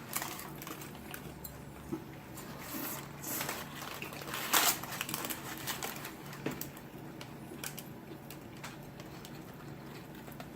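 Eating sounds: chewing with scattered small clicks and brief rustles of paper food wrapping, and one louder rustle about four and a half seconds in.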